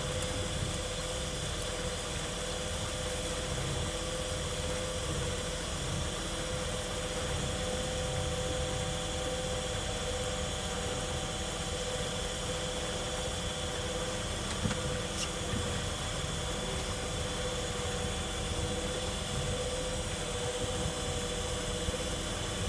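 Tour boat's motor running steadily: a low rumble with a constant hum and a thin whine over it.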